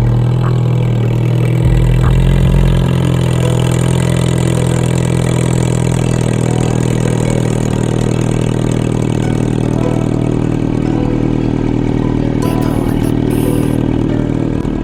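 Turbocharged K24 four-cylinder engine of a 9th-gen Honda Civic Si idling steadily, its pitch holding nearly constant.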